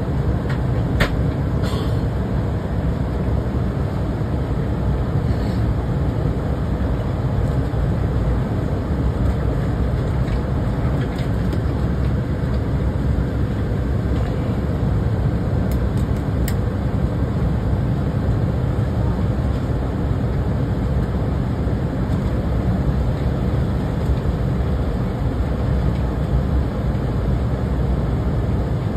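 Steady low roar of a jet airliner's engines and rushing air heard inside the passenger cabin on approach to landing, with a few brief clicks near the start and about halfway through.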